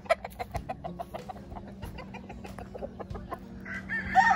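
Chickens clucking in short, rapid notes, with a rooster beginning a long crow near the end.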